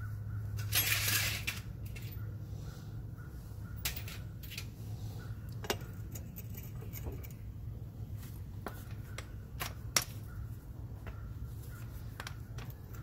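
Hand tools clicking and clinking on metal while a Cushman rear brake drum assembly is worked loose: a short scraping hiss about a second in, then a few sharp clicks, over a steady low hum.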